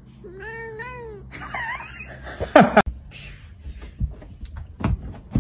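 Cat meowing: a wavering, arching call about half a second in, a shorter call after it, then a loud falling meow. A few dull thumps follow near the end.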